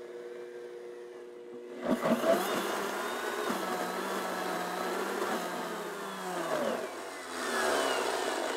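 Countertop blender motor running with a thick avocado puree in the jar. It runs steadily at low speed, then about two seconds in jumps to a louder, higher speed. Its pitch sags and then picks up again near the end.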